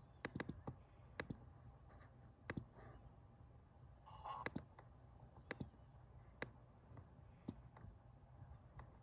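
Sharp single clicks of a laptop pointer being clicked, about a dozen spread irregularly, some in quick runs of two or three, over a faint low room hum. A short soft rustle comes about four seconds in.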